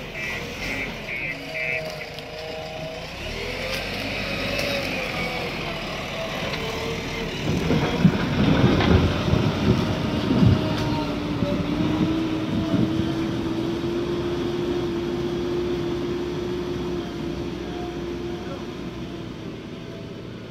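JCB backhoe loader's diesel engine running as the machine drives and works. A rapid beeping alarm sounds in the first couple of seconds, loud clanks and knocks come about eight to eleven seconds in, and then the engine holds a steady note.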